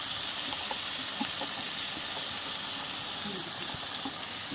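Chopped onions sizzling steadily in hot oil with cumin seeds in a kadai, with a few faint crackles.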